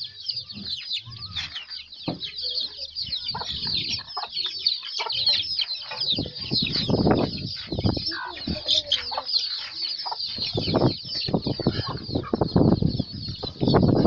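A flock of chicks peeping constantly in high, dense chirps, with hens clucking among them. Bursts of rustling noise come and go, loudest in the second half.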